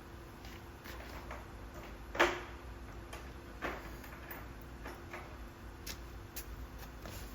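Scattered light clicks and knocks of hand tools and parts being handled, uneven in spacing, with one louder knock about two seconds in.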